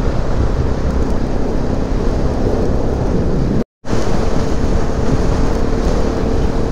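Bajaj Pulsar NS200 motorcycle on the move at a steady speed, its engine a faint steady hum under heavy wind buffeting on the microphone. The sound cuts out for a split second just past halfway.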